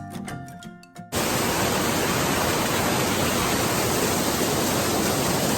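Background music with bell-like notes cuts off about a second in. The steady rush of a waterfall takes over and holds.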